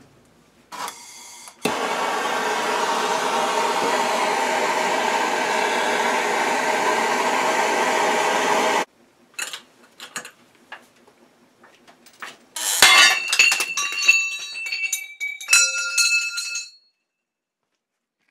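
A handheld gas torch hisses steadily for about seven seconds, heating a crankshaft's Loctite-bonded tapered press-fit center main joint, then shuts off sharply. After a few light clicks from the press handle, the joint lets go under the hydraulic press with a sudden loud crack, followed by a few seconds of metal parts clinking and ringing.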